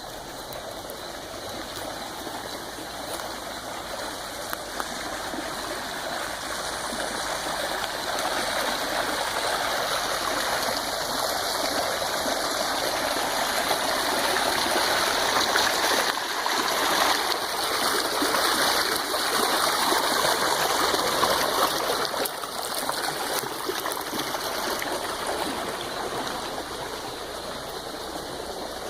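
Flowing stream: a steady rush of water that grows louder toward the middle and eases off near the end.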